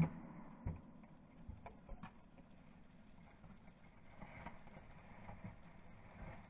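Double-bit axe splitting a round of arbutus firewood: the ringing end of a sharp blow right at the start, then a lighter wooden knock and a few faint clicks.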